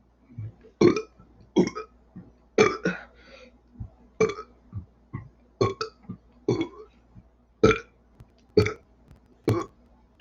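A person burping over and over in short, separate burps, about one a second.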